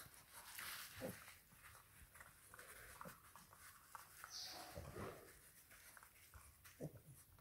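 Faint gnawing and scattered soft clicks from English bulldog puppies chewing on a chew and shuffling on artificial grass, with a brief sniff-like hiss a little after the middle.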